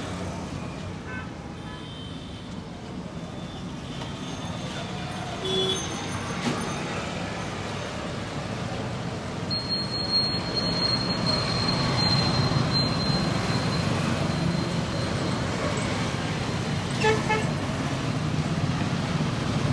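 Roadside traffic noise of passing vehicles, with a couple of short horn toots. A thin, high, steady tone lasts about three seconds midway.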